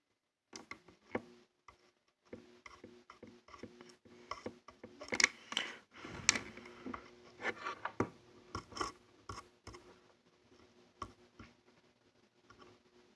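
Irregular small clicks, taps and scrapes of hand-soldering work: a soldering iron and wire being worked against a battery-pack terminal, busiest about five to seven seconds in.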